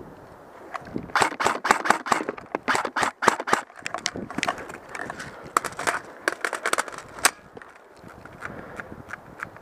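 Airsoft guns firing in a firefight: rapid, irregular bursts of sharp shots starting about a second in and thinning out after about seven seconds to a few scattered shots.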